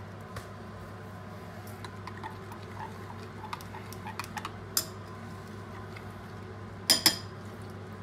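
A spoon stirring and tapping in a glass food-processor bowl of smooth soup: scattered light clinks, then two sharp clinks close together about seven seconds in, over a faint steady hum.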